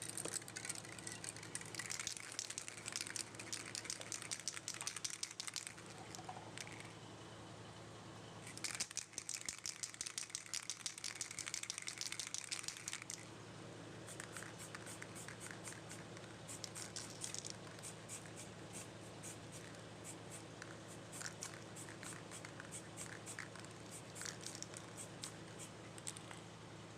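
Quick, scratchy rubbing strokes on a plastic car tail-light lens, in two dense runs and then sparser ones, over a steady low hum.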